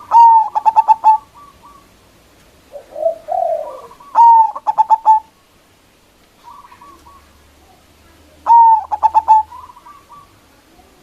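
Zebra dove (perkutut) singing its cooing song three times, about four seconds apart: each phrase opens with a loud drawn note and runs into a quick string of short, clipped coos. Fainter trilling comes between the phrases, with a lower, softer warble after the first.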